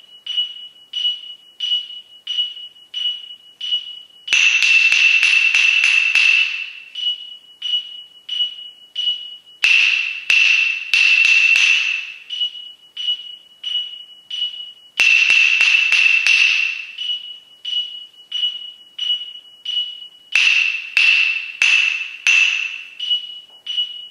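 Wooden claves struck together in four short rhythm patterns of quick double strokes and single strokes, each followed by a pause, over a steady beeping pulse about twice a second, like a metronome.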